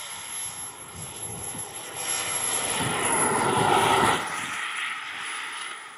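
Twin model jet turbines of a radio-controlled Airworld Me 262 on a low flypast: a high turbine whine and jet rush build steadily to their loudest about four seconds in as the jet passes, then drop off quickly as it moves away.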